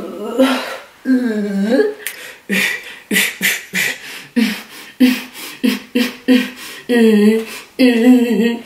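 A woman's voice making rhythmic vocal sounds: short sung and beatboxed bursts about two or three a second, running into longer sung phrases near the end.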